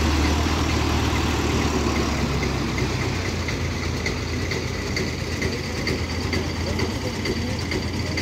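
Mahindra tractor's diesel engine idling steadily, with a light, regular ticking over a deep hum.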